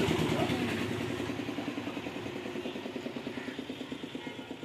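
An engine running with a steady pulsing, growing steadily fainter as it fades away.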